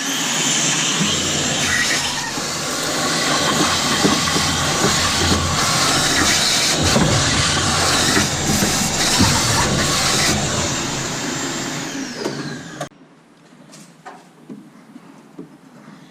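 Vacuum cleaner switched on and running steadily with a loud hissing rush, then switched off about thirteen seconds in, its motor whine falling as it winds down.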